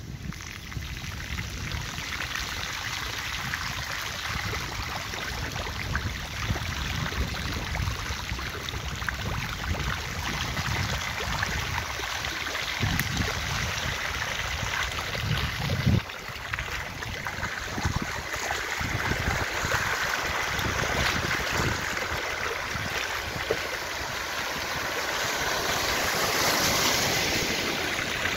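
Floodwater running along a flooded street: a steady rushing wash of water over an uneven low rumble. A single sharp thump comes about halfway through.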